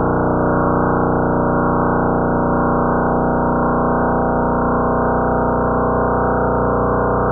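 Space sound recording, a sonification turned into audio: a steady, dense drone of many held tones stacked together, unchanging throughout.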